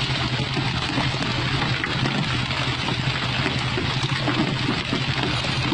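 A fishing boat's engine running with a steady hum, under a constant rush of water and spray along the hull as the boat moves.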